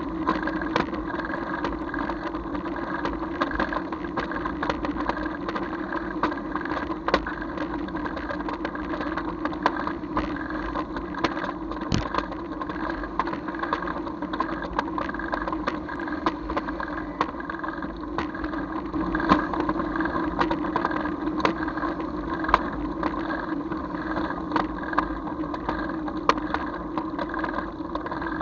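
A vehicle's engine running steadily while travelling along a road, a constant hum with frequent small knocks and rattles.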